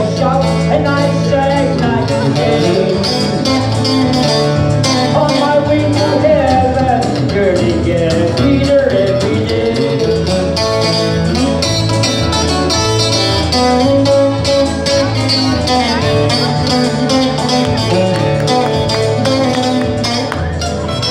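Live country-style gospel band music led by electric guitar, over a repeating bass line.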